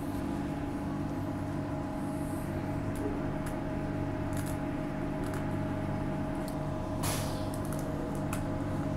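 Transperth A-series electric multiple unit heard from inside the carriage as it pulls out of a station: a steady hum and whine from the traction equipment over the running noise, with a few light clicks and a short hiss about seven seconds in.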